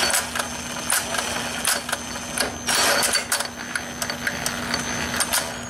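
Cut-away Kawasaki Ninja six-speed motorcycle transmission being turned and shifted by hand: irregular metallic clicks and clunks as the shift forks slide the gears in and out of engagement, with short bursts of gear rattle. A steady low hum runs underneath.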